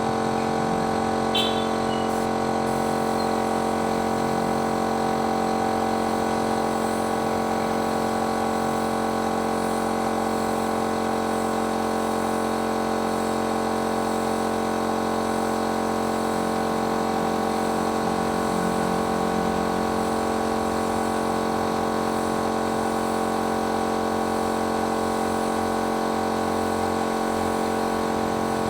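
Paint-spraying machine's electric motor running steadily at a constant pitch, a continuous hum that does not change.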